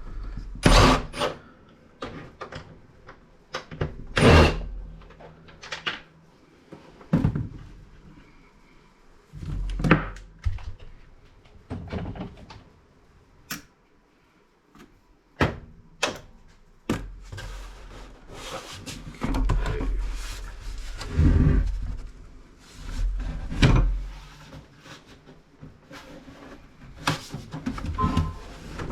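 Irregular knocks, clicks and clatter of hand tools and the plastic housing of a CRT computer monitor being handled and taken apart on a workbench.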